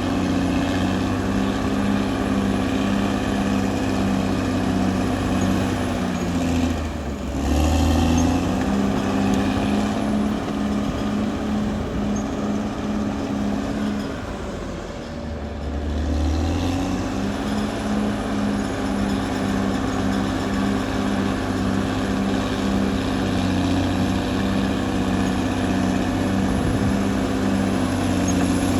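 Caterpillar D6R XL bulldozer's diesel engine running steadily with a slight pulse. Its note dips and comes back up about seven seconds in and again about fifteen seconds in.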